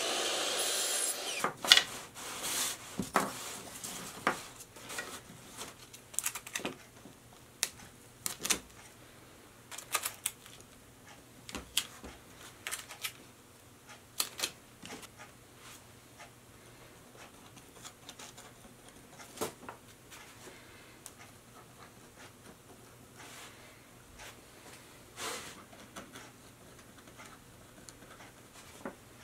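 A brief loud burst from a miter saw about a second long, then scattered clicks, taps and knocks of small walnut pieces being handled on a workbench. The knocks come most often in the first half and thin out later.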